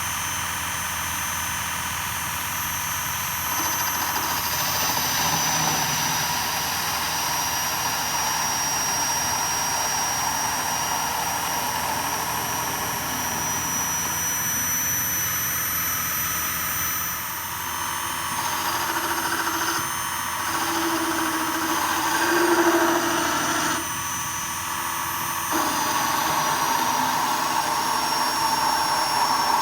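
Electric workshop machine running continuously with a steady high whine; its sound changes for several seconds a little past the middle, then settles again.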